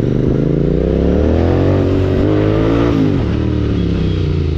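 Royal Enfield Continental GT 650's 648 cc parallel-twin engine running loud through a Red Rooster Stellar aftermarket exhaust. The pitch climbs over the first couple of seconds, drops sharply about three seconds in, then runs on lower and steady.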